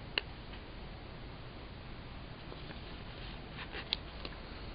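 Quiet room noise with a few light clicks and taps: hands handling the paper pages of a spiral-bound planner and sticker sheets, one sharp click just after the start and a short cluster of faint ticks near the end.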